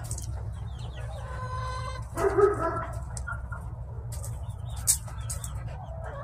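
Backyard hens clucking and calling in a coop, a few short calls with the loudest about two seconds in. A few sharp clicks come near the end, over a steady low hum.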